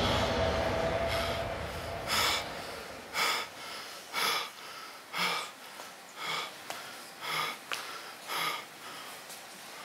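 A low rumble fades out, then a man snorts and breathes hard in short, even bursts about once a second, close to a microphone.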